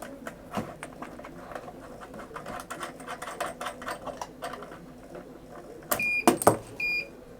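Many small clicks and taps from handling the small parts of a soldering iron handle. About six seconds in come a few louder knocks and two short, high electronic beeps.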